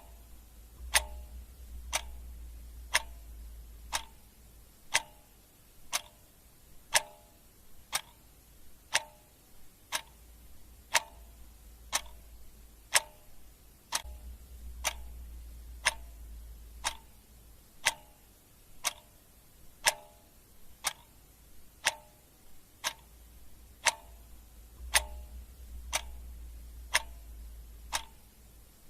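Clock ticking steadily, about two ticks a second, with every other tick louder in a tick-tock pattern.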